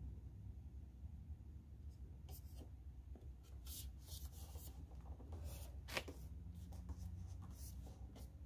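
Fingers rubbing and pressing an adhesive plastic door sill guard down onto a Jeep Gladiator's door sill: a series of short rubbing strokes, with a sharp tap about six seconds in, over a low steady rumble.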